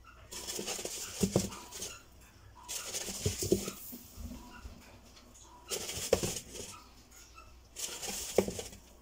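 A chinchilla dust-bathing in fine rodent bathing sand in a plastic tub: four bouts of rolling, each about a second long, with the sand hissing and rustling and a few thumps, separated by short pauses.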